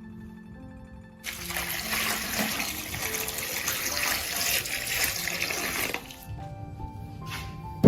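Water running from a tap into a sink, starting about a second in and stopping about six seconds in, over soft background music.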